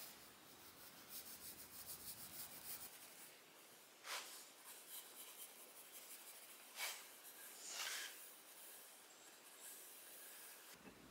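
Faint pencil scratching along a black walnut bow stave as a layout line is drawn, in quick short strokes, with a few louder strokes partway through.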